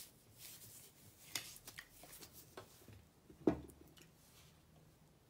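Gloved hands handling and turning a large block of chalk: faint rubbing and scraping with scattered small clicks, and one louder knock about three and a half seconds in.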